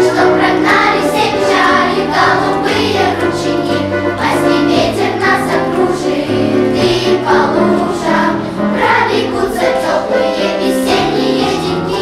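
Children's choir singing a song in Russian, with an instrumental accompaniment holding low notes beneath the voices.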